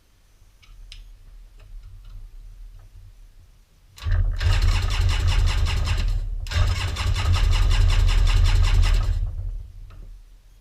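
Sea-Doo 951 two-stroke jet ski engine cranking over on its electric starter in two runs with a short break between, for a compression and spark check.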